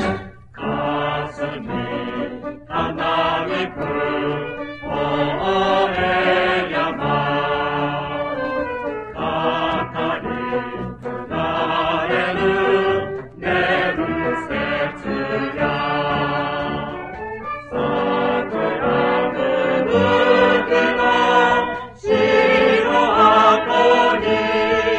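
Mixed-voice choir singing a Japanese song in phrases, accompanied by a high-school brass band, from a 1972 flexi-disc (sonosheet) recording.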